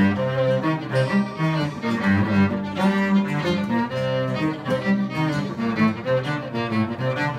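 A small acoustic string group playing a tune together: bowed cello and violin over a strummed acoustic guitar, the notes moving quickly at an even pace.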